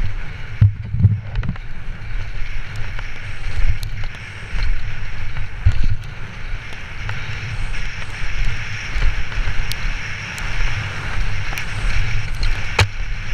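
Enduro mountain bike descending a dry, rough dirt trail, heard from a helmet camera: wind on the microphone and a continuous rumble of tyres over dirt and stones. The bike knocks and rattles over bumps, with a heavy thump about a second in.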